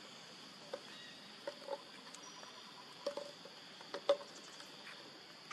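Steady high-pitched insect drone, with scattered soft clicks and taps over it, the loudest about four seconds in.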